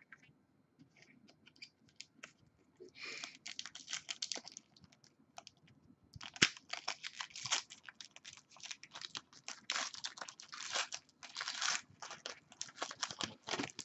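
Crinkling and tearing of trading card pack wrappers with cards being handled, in irregular bouts of crackling.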